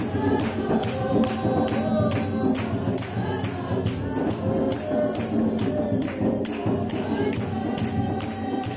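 A congregation singing together, with a tambourine keeping a steady beat of about three strokes a second.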